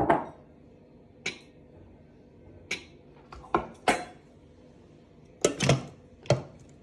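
Kitchen clatter as canned jackfruit is tipped into a Thermomix: a string of sharp knocks and clinks of a tin can and utensils against the stainless-steel mixing bowl and lid, spaced unevenly.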